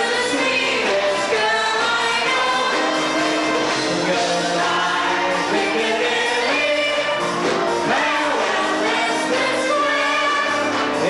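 A 1940s song recording playing: voices singing a melody with instrumental accompaniment.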